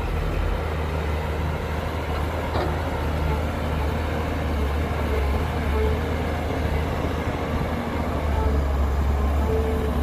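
Heavy diesel engine of earthmoving machinery running steadily with a deep, even rumble.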